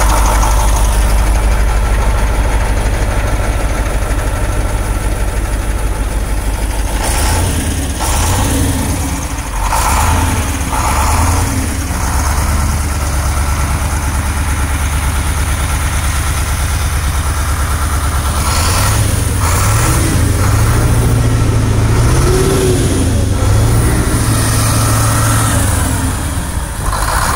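KamAZ 6520 truck's 360-horsepower Euro-2 diesel engine running, idling steadily at first, then changing speed with rises in pitch from about seven seconds in and again after about nineteen seconds.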